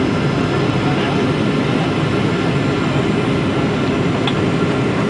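Steady, deep drone of a Boeing 737's jet engines and the air rushing past, heard inside the passenger cabin during the descent to land.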